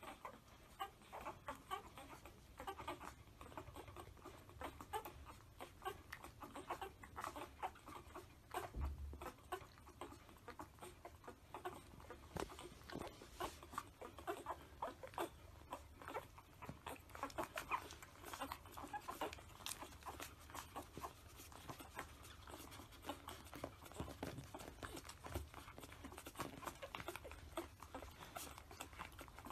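Newborn puppies nursing: soft suckling and smacking clicks with small squeaks, going on without a break. A soft low bump about nine seconds in.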